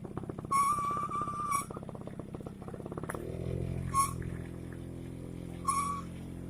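Small motorcycle engine running, its pitch lifting a little about three seconds in. A high steady tone sounds over it several times, the longest about a second.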